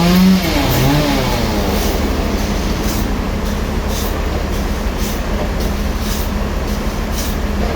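Sawmill saw cutting a large log: its steady running tone dips and wavers in pitch in the first second, then settles into a steady, dense cutting noise.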